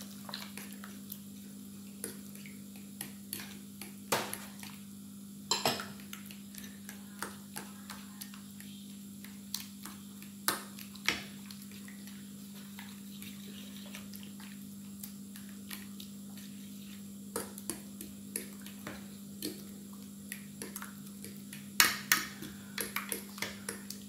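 A spoon stirring wet minced pork in a glass baking dish: scattered clicks and taps of the spoon against the glass, loudest in a quick run about 22 seconds in, over a steady low hum.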